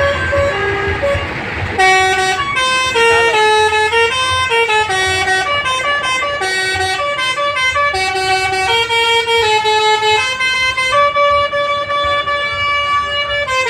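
Basuri multi-tone 'telolet' bus horn playing a melody: a run of horn notes stepping up and down in pitch, a note every half second or so, louder from about two seconds in. A bus engine runs underneath.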